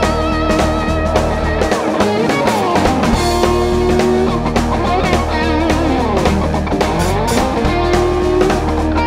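Rock band playing live: electric guitar with notes sliding up and down in pitch, over bass and a drum kit.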